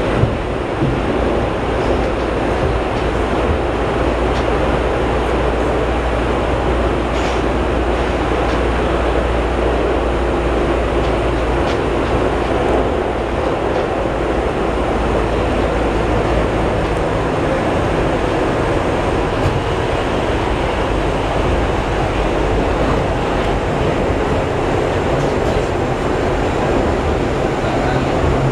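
Ride noise inside an R68 New York subway car under way: a steady, loud rumble and roar of the wheels on the rails, with a few faint clicks.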